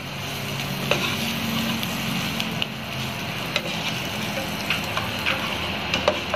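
Slice of bread frying in butter in a nonstick pan, a steady sizzle, with a wooden spatula pressing and scraping it against the pan and a few sharp taps.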